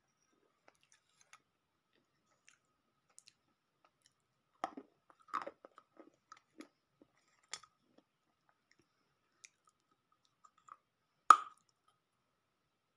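Someone biting and chewing pieces of roasted multani mitti (baked clay), giving sparse crisp crunches and small clicks. A cluster of crunches comes about five seconds in, and the loudest crunching bite comes near the end.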